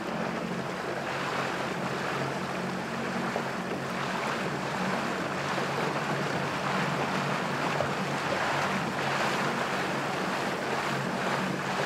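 A small motorboat under way: its engine running steadily as a low hum, with water rushing past the hull and wind on the microphone.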